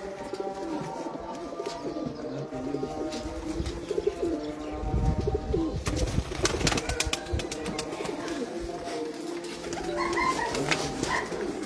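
A flock of domestic pigeons cooing together, many low, wavering calls overlapping. About six seconds in, a run of sharp clicks cuts across the cooing.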